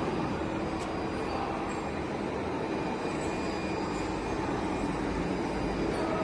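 Steady factory-floor machinery noise: a continuous low rumble and hiss with no distinct strokes, a little deeper from about two-thirds of the way in.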